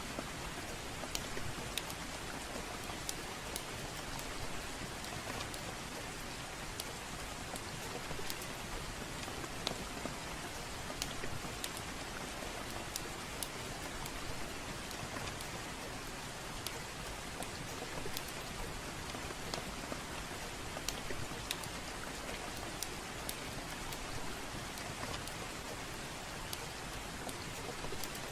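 Steady rainfall mixed with the irregular sharp crackles and pops of a wood fire burning in a fireplace.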